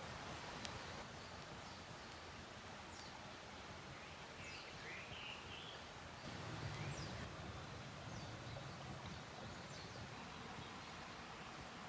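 Faint outdoor ambience: a steady hiss with a few short, high chirps around the middle and a slight low swell a little after them.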